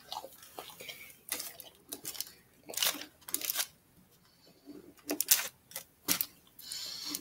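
A dog eating cake from a paper wrapper on the floor: irregular wet chewing and licking smacks with sharp little clicks.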